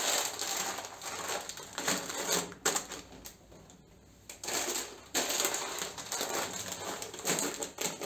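Plastic bags of dry pasta crinkling and rustling as they are handled and stacked on a shelf, with a few sharp clicks, in two spells with a short lull in the middle.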